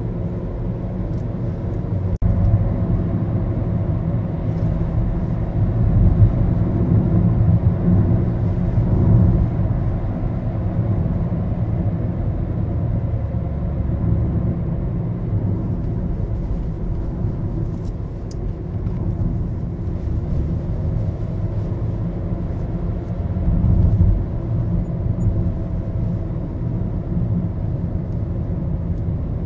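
Maruti Suzuki Baleno on the move, heard from inside the cabin: a steady low rumble of engine and road noise.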